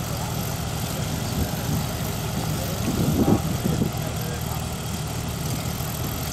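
Air-cooled flat-four engine of a VW Karmann Ghia running at low revs as the car pulls slowly away, with a brief louder swell of sound about three seconds in.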